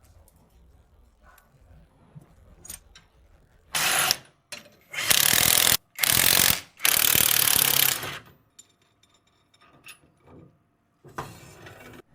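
Ratchet spanner being cranked on e-rickshaw gearbox bolts, in five bursts: a short one about four seconds in, three longer ones almost back to back just after, and one more near the end.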